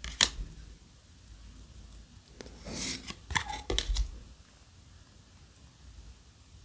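Trading cards handled in the hand: a sharp click near the start, then about three seconds in a brief swish of one card sliding off another, followed by a few light taps as the next card is brought to the front.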